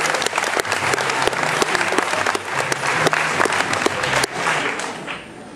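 Theatre audience applauding, a dense patter of many hands clapping that dies away after about four seconds.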